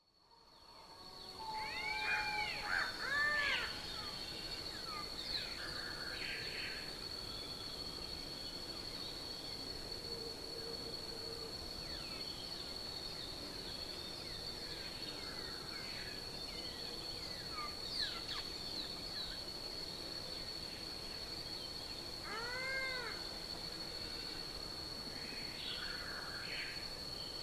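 Outdoor animal ambience: a steady high-pitched insect drone with scattered short bird chirps. Twice, a drawn-out meow-like call rises and falls in pitch, once about two seconds in and again about twenty-three seconds in.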